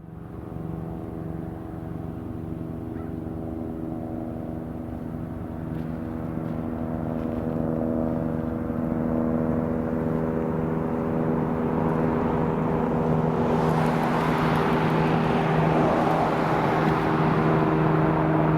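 Cessna 172's piston engine and propeller droning at a steady pitch, growing gradually louder, with a rushing noise building up over the last third.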